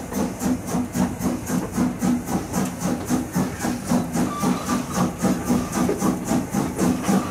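Steam locomotive exhaust chuffing in an even rhythm of about four beats a second, each beat a puff of steam, over a steady low hum.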